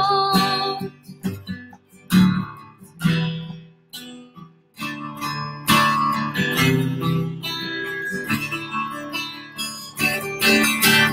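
Acoustic guitar strummed through an instrumental break in a song. A held sung note fades out in the first second.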